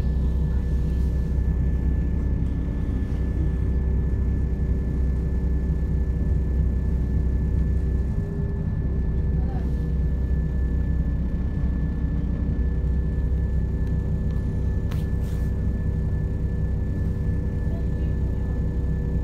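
Cabin sound inside a moving Class 172 Turbostar diesel multiple unit: a steady low rumble of the underfloor diesel engine and running gear, with a constant hum of several steady tones over it.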